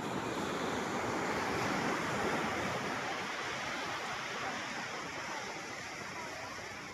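Sea surf washing onto a beach: one swell of rushing water that builds to its loudest about two seconds in, then slowly ebbs away.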